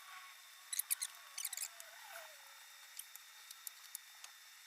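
Faint, sparse light clicks and ticks: a quick cluster about a second in, another around a second and a half, then scattered single ticks, against quiet room tone.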